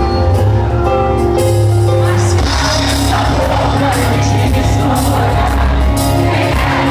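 A rock band playing live and loud through a concert PA, picked up by a phone microphone in the crowd. Sustained chords ring for the first couple of seconds, then a busier stretch follows with singing over the band.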